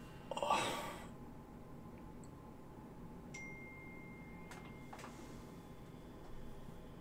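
A man's single breathy exhale about half a second in, then low room tone with a faint steady high tone coming in midway and a couple of faint clicks.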